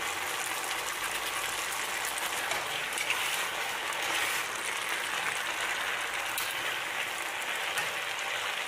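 Spaghetti, onions and sausage frying in a hot pan as they are stirred, with a steady crackling sizzle.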